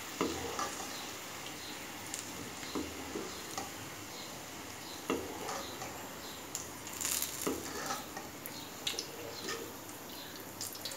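Hot oil sizzling in a kadai with freshly fried peanuts and brinjal pakodi pieces, and scattered clicks and scrapes of a metal wire strainer and ladle against the pan.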